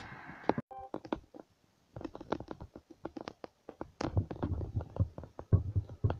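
Handling noise on a handheld microphone: irregular clicks and scratches, with low thumps joining about four seconds in.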